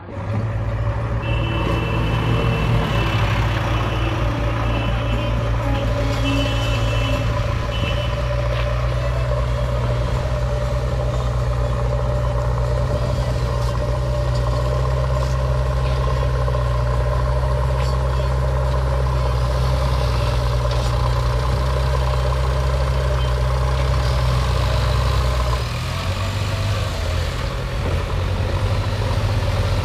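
Diesel engine of a JCB backhoe loader running steadily under working load, with intermittent high beeping during the first several seconds. About 26 s in the engine note drops to a lower, less even sound.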